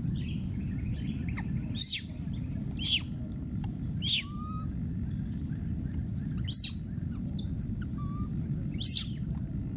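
A baby macaque screaming: five short, shrill squeals spaced one to two and a half seconds apart, each dropping in pitch. These are an infant's distress calls, calling for a lost companion.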